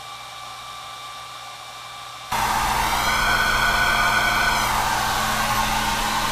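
Hiss picked up by a small microphone held at the open end of a paper tube, the air in the tube giving the noise a hollow, pitched ring. It stays low for about two seconds, then turns to a louder rush that holds steady.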